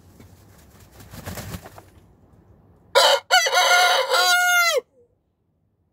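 Rooster crowing once, a loud cock-a-doodle-doo about three seconds in that lasts under two seconds, its last note falling away at the end. A softer rustle of movement comes just before it.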